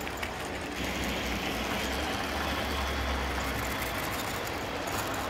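Model train of a New York Central J1e Hudson steam locomotive and passenger cars running past on the layout track: a steady rumble of wheels rolling on rail, fuller for a couple of seconds as the cars pass close.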